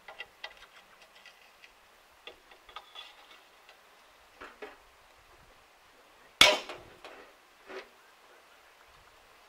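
Scattered metal clinks and knocks of hand tools working on a rotary drum mower's lower hub during disassembly, with one loud sharp metallic strike about two-thirds of the way through and a smaller knock just after.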